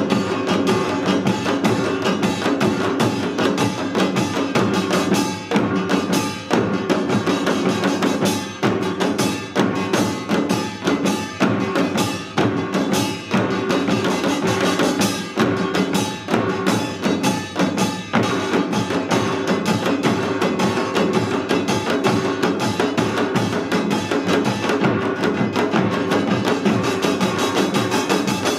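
Korean samul nori percussion ensemble playing Utdari rhythms: kkwaenggwari small gongs clanging over janggu hourglass drums and buk barrel drums in a dense, driving beat.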